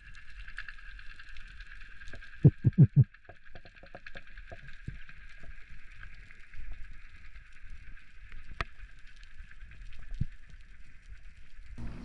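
Underwater sound through a diving camera's housing during a breath-hold descent: a steady hiss with scattered faint ticks, and four loud low thumps in quick succession between two and three seconds in.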